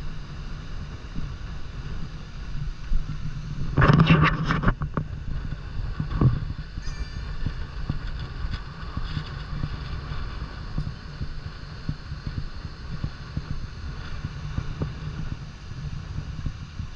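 Steady low rumble of wind on the microphone mixed with the roar of Horseshoe Falls, with a louder burst about four seconds in and a smaller knock a couple of seconds later.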